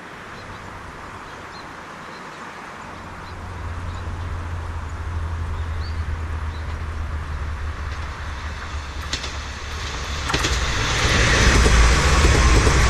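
Kanto Railway KiHa 2100-series diesel railcar approaching and passing at speed. Its engine rumble builds from about three seconds in. Near the end comes loud wheel-on-rail noise as the cars go by, just after a couple of sharp clacks.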